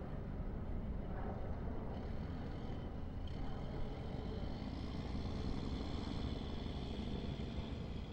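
Highway traffic: a steady rumble of passing vehicles and tyre noise. From about three seconds in, a high whine from one passing vehicle rises slightly in pitch, then fades near the end.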